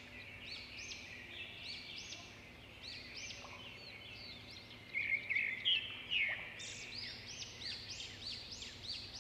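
Small birds chirping: a continuous stream of short, high, arching notes that grows busier and louder about five seconds in, over a faint steady hum.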